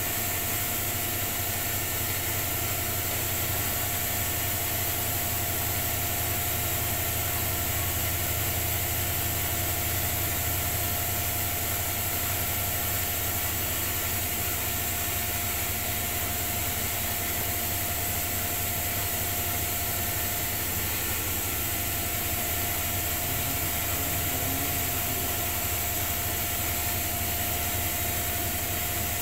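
Bosch WAE20462TR front-loading washing machine in its final spin, the drum spinning steadily: a constant whine over a low hum and an even rush, with no rise or fall.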